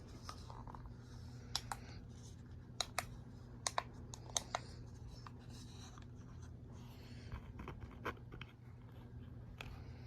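Scattered light clicks and taps, several in quick pairs, over a steady low hum.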